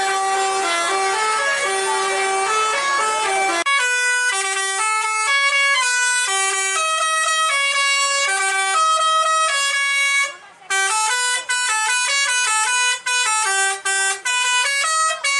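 Tour buses' telolet basuri horns, multi-note electric horns, playing quick stepped melodies and answering one another. Two horns overlap at first, then one plays a cleaner tune. After a brief break about ten seconds in, short choppy notes follow.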